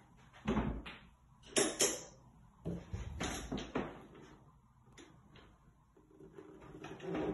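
Scattered knocks and clicks as a door is moved and someone handles the phone in a small tiled bathroom, with two sharp clicks close together under two seconds in and a cluster of knocks around three seconds in.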